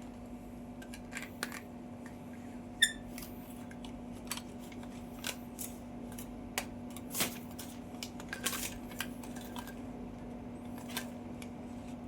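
Plastic parts of a floor-cleaning mop kit being handled and unpacked: scattered light clicks and taps, with one sharper, briefly ringing click about three seconds in, over a steady low hum.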